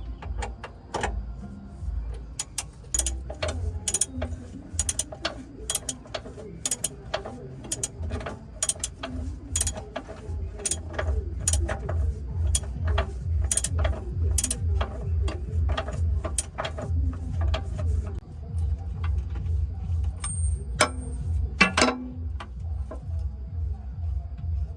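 Irregular sharp metallic clicks and knocks of hand-tool work on a heavy truck wheel. Under them is a low pulsing rumble that grows stronger about halfway through.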